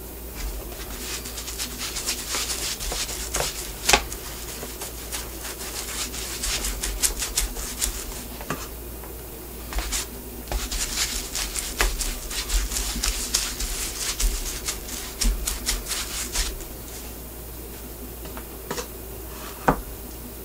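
Quick repeated strokes of a hand tool working a shoe's leather sole, in two long runs of several seconds each. Now and then there is a sharp knock, the loudest about four seconds in and another near the end.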